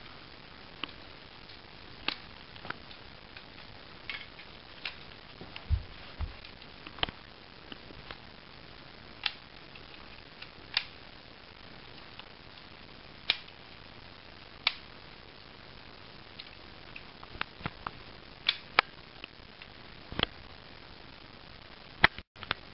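Scattered sharp plastic clicks and snaps from a homemade Lego rubber-band submachine gun being handled and its mechanism worked. Two duller knocks come about six seconds in.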